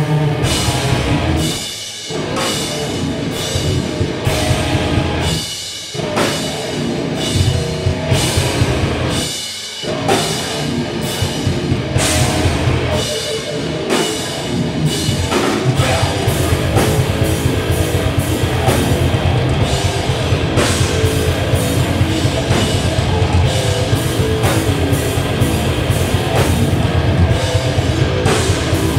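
A heavy rock band playing live: distorted electric guitars, bass guitar and a drum kit. The band stops for brief breaks about 2, 6 and 10 seconds in, then plays on without a break.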